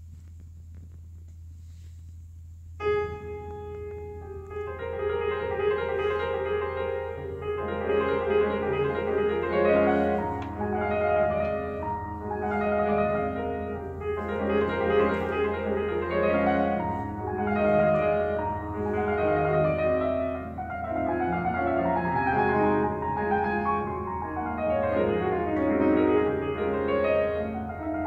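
Solo grand piano playing a classical piece: after about three seconds of quiet with only a steady low hum, it comes in with a sudden loud note and goes on in continuous passages.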